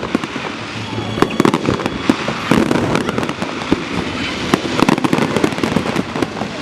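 Fireworks display going off: many sharp bangs in quick succession, with crackling between them.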